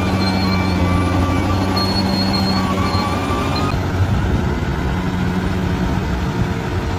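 Bulldozer's diesel engine running steadily under load, with a high-pitched squeal over it that stops a little past halfway through.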